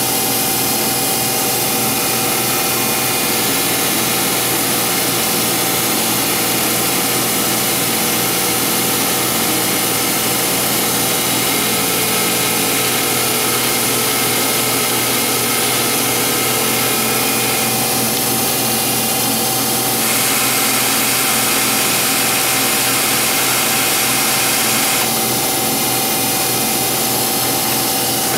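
Metal lathe running at full spindle speed while a turning tool takes a light cut along a steel arbor. It is a steady machine whine with cutting noise underneath, and the cut throws stringy chips.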